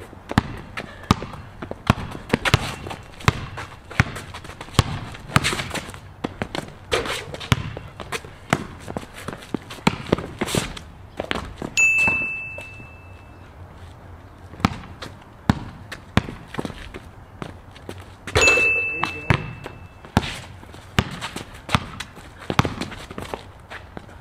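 A basketball being dribbled on a concrete court: runs of sharp bounces at an uneven pace, broken by short pauses.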